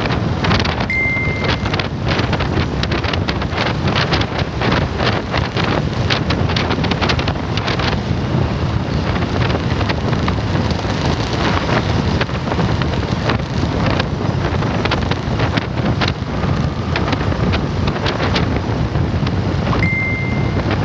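Wind buffeting the microphone over the running noise of a motorcycle tricycle on the move. A short, high, steady beep sounds about a second in and again near the end.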